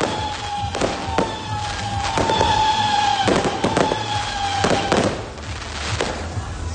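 A 36-shot consumer firework cake firing in quick succession. Sharp bangs come at about two a second, over whistles that sink slowly in pitch.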